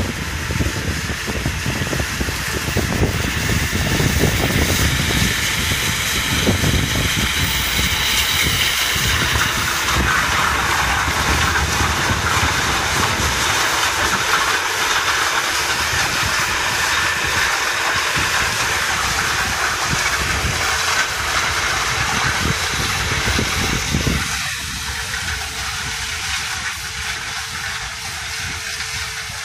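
Claas Lexion 600 combine harvester threshing maize with its Conspeed corn header, running side by side with a tractor, in a steady loud mechanical din with a hissing top and a fluttering low rumble. About 24 seconds in the sound turns thinner and a little quieter.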